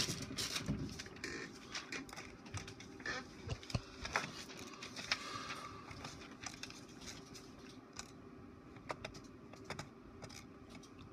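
Irregular light clicks and taps from a computer mouse being worked at a desk, over a steady low hum.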